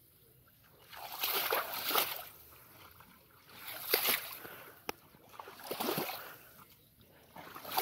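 Shallow muddy water splashing and sloshing as a fishing net is dragged and worked through it by hand, in four short bursts about a second long.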